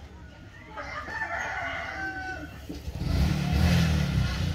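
A rooster crowing, a single call of a second and a half or so. About three seconds in, a louder low rumble sets in and becomes the loudest sound.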